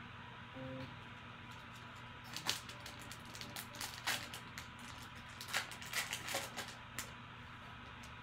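Foil wrapper of a Panini Prizm football card pack crinkling in the hands, a run of sharp, irregular crackles from about two seconds in until about seven seconds in.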